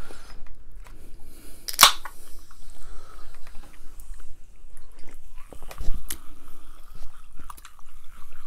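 A Diet Pepsi can's ring-pull cracked open about two seconds in: one sharp pop followed by a short hiss of fizz. Sips and chewing mouth sounds follow, close to the microphone.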